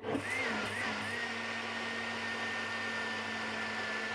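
Countertop blender motor switched on for a pulse, blending beetroot, berries and banana into a smoothie. The pitch dips twice in the first second, then the motor runs steadily.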